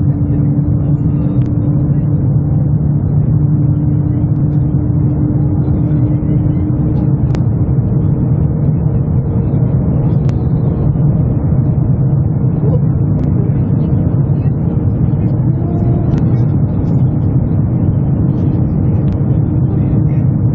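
Cabin noise inside a JR Central L0 series superconducting maglev train levitating at high speed, about 470 rising to 500 km/h, in a tunnel. It is a loud, steady low rumble with humming tones: one fades about a third of the way in as another, higher one comes in.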